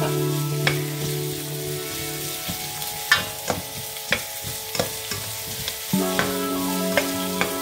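Sliced onions sizzling as they fry in a stainless steel pot, stirred with a spatula that knocks and scrapes against the pot in scattered sharp clicks. A steady low tone sounds in the background and drops out for a few seconds midway.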